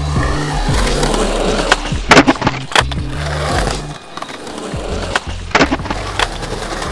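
Skateboard wheels rolling on concrete, with sharp clacks of the board popping and landing in a cluster about two to three seconds in and again near the end, over music with a steady bass line.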